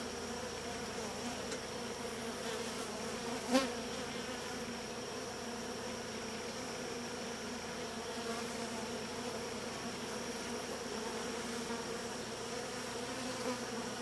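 Honeybees buzzing steadily around an open hive, a low continuous hum, with one brief knock about three and a half seconds in.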